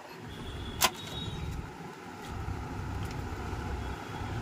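A single sharp click about a second in, over a steady low background rumble.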